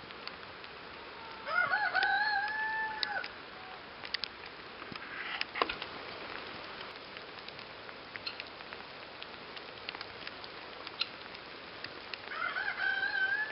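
A rooster crowing twice, about ten seconds apart. Each crow rises quickly and is then held for about a second and a half. Faint scattered ticks come in between.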